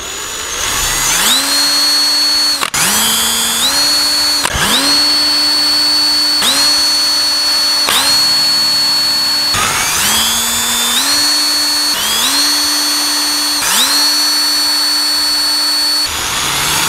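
Electric power drill boring mounting holes through a radiator fan's mounting flange into the shroud panel. It runs in a series of short bursts, each spinning up with a rising whine and holding a steady pitch for a second or two before stopping.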